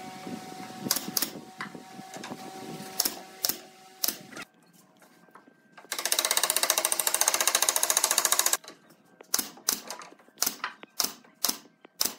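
Cordless impact driver driving a screw into the pine pallet wood: a loud, fast rattle of about two and a half seconds starting about six seconds in. Wood knocks and clicks from handling the slats come before and after.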